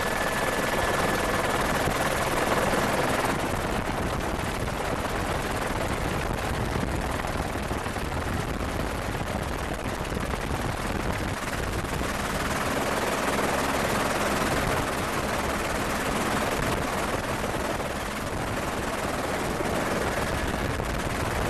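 Helicopter running steadily: dense rotor and turbine noise with a rapid flutter, and a thin high whine for the first three seconds or so.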